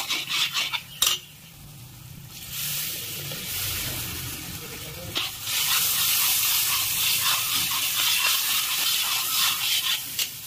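Ladle scraping and stirring spice masala in a heavy iron kadai, a few quick strokes at the start, then a frying sizzle in hot oil that builds from about two seconds in and is loudest through the second half.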